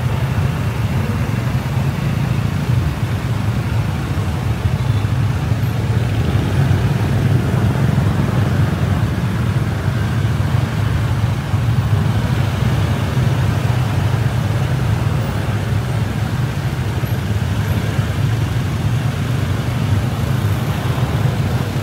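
Car being driven, with a steady low rumble of engine and tyre noise and no sudden events.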